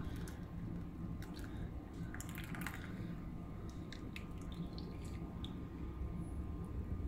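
Chai being poured through a metal mesh tea strainer into a cup, then dripping from the strainer, with scattered light clicks and ticks. A low steady hum runs underneath.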